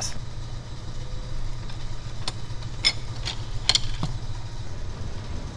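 Vacuum pump running steadily with a low hum while it pumps down the neon processing manifold, with a few light clicks between about two and four seconds in.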